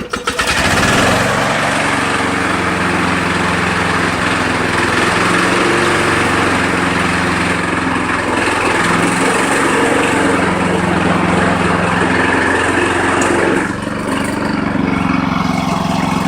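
Kubota W5019 push mower's 5 hp four-stroke engine running steadily with the blade clutch engaged, the spinning blade adding a whooshing hiss. About 14 seconds in, the hiss drops away and the engine note changes slightly.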